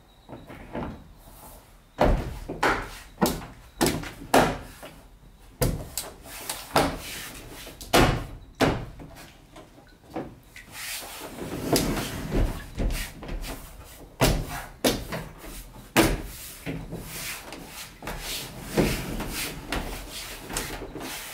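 Trim piece on a Sprinter van being pressed and knocked back onto its retaining clips: a long, irregular run of knocks, clicks and thuds on the van body, some of them loud.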